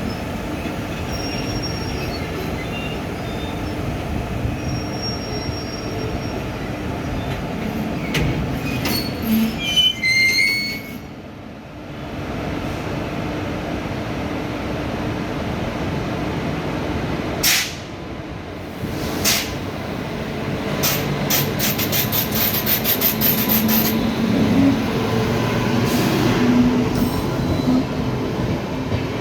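Passenger express train departing a station: steady rumble of the coaches rolling, with wheels squealing briefly about a third of the way in and a quick run of clicks over rail joints later, growing louder near the end.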